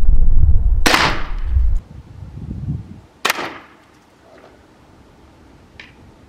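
Two sharp cracks from a Bear Trek 380 crossbow being shot at a target, the first about a second in and the louder, the second about two and a half seconds later. Wind rumbles on the microphone for the first two seconds.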